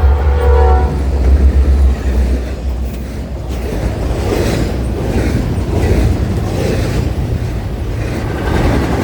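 Nathan P5 five-chime air horn on Norfolk Southern train 200 sounding a chord that cuts off about a second in, followed by the train rolling past with a heavy low rumble and a rhythmic clatter of wheels over the rail joints.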